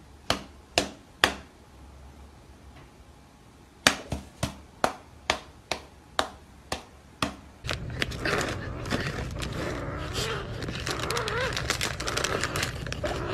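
A run of sharp smacks as a cat bats its paws against a person's hand: three close together, then an even series of about two a second. About eight seconds in, steady crinkly rustling starts as a kitten grapples a plastic packet, with a wavering voice-like sound over it.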